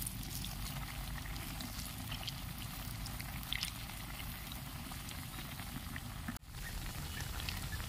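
Malpua batter cakes deep-frying in hot oil in an iron kadai: a steady sizzle with many small scattered pops and crackles. The sound briefly drops out about six seconds in.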